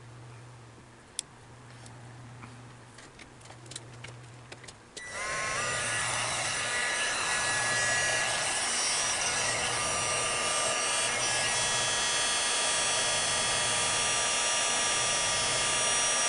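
Heat gun switched on about five seconds in, its fan whine rising briefly as it spins up and then running steadily, shrinking heat-shrink tubing over a wire. A few light clicks of handling come before it.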